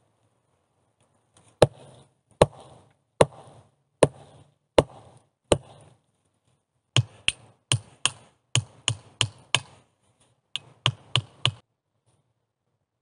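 Hatchet chopping into the wood of a log door frame: six hard, evenly spaced blows a little under a second apart, then two quicker runs of lighter chops, about three a second.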